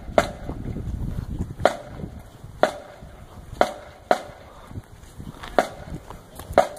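Marching band percussion striking sharp, dry clicks, roughly one a second with an occasional quick pair, keeping the marching tempo while no wind instruments play.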